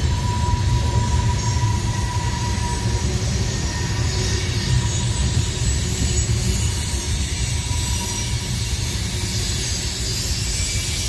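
Long freight train of open-top cars rolling past on the curve: a steady low rumble of wheels on rail, with a thin high squeal for the first few seconds.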